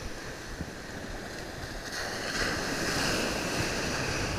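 Ocean surf washing up onto the beach, the wash growing louder about two seconds in as a wave breaks and runs in.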